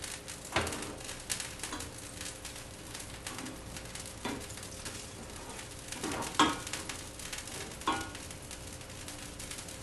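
Garlic frying in melted butter in a small frying pan, a faint steady sizzle, while a metal utensil stirs it and clinks against the pan about four times.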